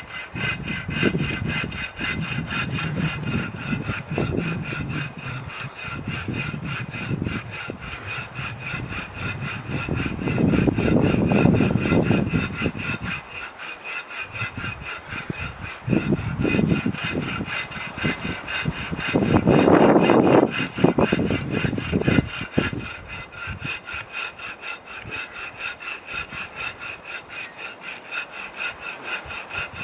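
Hand saw cutting through wood in steady back-and-forth strokes, with two louder stretches of noise about a third and two thirds of the way through.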